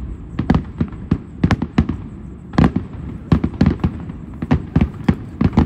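Aerial firework shells bursting in a rapid, irregular barrage of sharp bangs, several a second, with a short lull about two seconds in.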